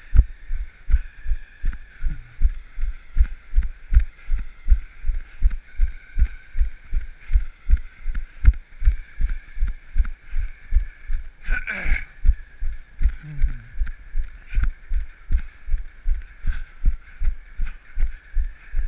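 Steady, rhythmic low thumps of a runner's footfalls jolting the camera, about three strides a second.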